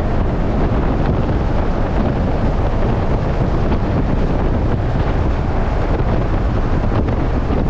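Wind buffeting the microphone in the open cabin of a Nissan 370Z roadster driving with the top down: a steady rush strongest in the low end, with the car's driving noise mixed in beneath it.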